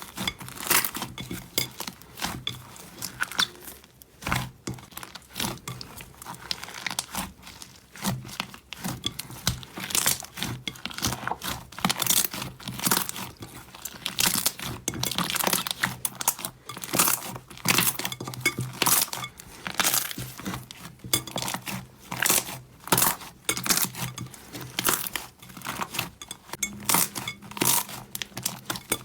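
Slime being squeezed, pressed and pulled by hand: a dense, irregular run of crackles and pops.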